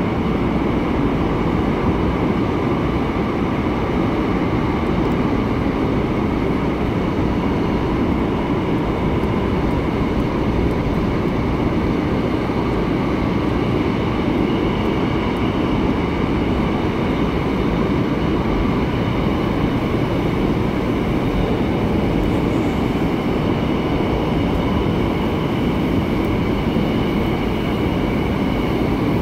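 Seoul Subway Line 8 train running at speed, heard from inside the passenger car: a steady rumble of wheels and running gear, with faint steady high tones above it.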